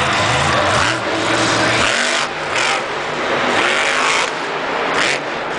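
Grave Digger monster truck's supercharged V8 engine revving hard, its pitch rising and falling several times as the truck turns and lifts into a wheelie.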